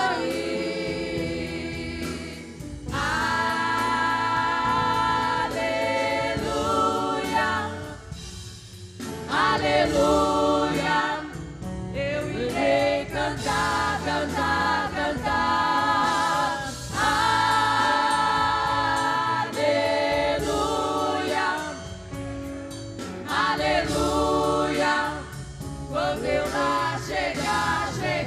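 Women's vocal group singing a gospel hymn in harmony over instrumental backing, in long held phrases with brief breaks between them.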